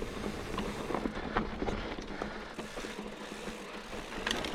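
Mountain bike rolling over a rough dirt trail: tyre and ground noise with scattered small clicks and rattles from the bike, and a sharper knock about four seconds in.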